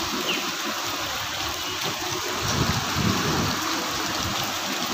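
Monsoon rain falling on a flooded street: a steady hiss of drops on standing water, with a brief low rumble a little past the middle.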